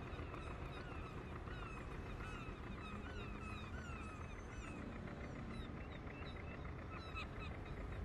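Gulls calling over a harbour, many short rising-and-falling cries one after another, over a steady low rumble of harbour ambience.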